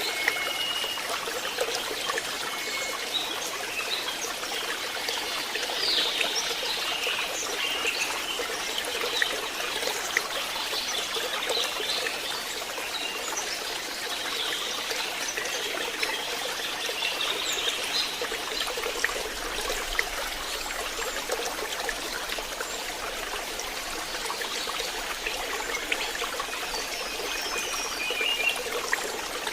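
Water trickling and splashing steadily in a small stream, with faint short chirps over it.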